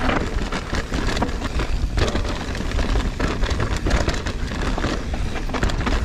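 Mountain bike descending a rough, muddy trail: tyres rolling over dirt and roots with the chain and frame rattling in quick, irregular clatters, over a constant low rumble of wind on the camera microphone.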